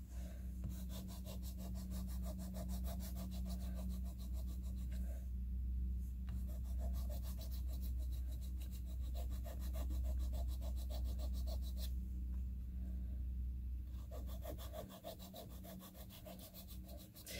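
A metal reed file rasping across the Bonanza cane of a bassoon reed blade in quick, short, even strokes, thinning one side of the tip that measured thick. The filing comes in three runs, with brief pauses about five and twelve seconds in.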